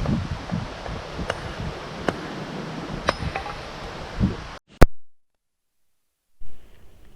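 Wind rushing over the microphone with a few sharp pops and clicks scattered through it. It cuts off abruptly about four and a half seconds in, after a loud click, to a second or two of dead silence. Then a soft thump and a much quieter outdoor background follow.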